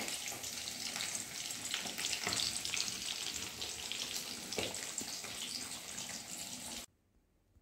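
Chili chicken sauce bubbling and sizzling in the pan, a dense, steady crackle of small pops that cuts off suddenly near the end.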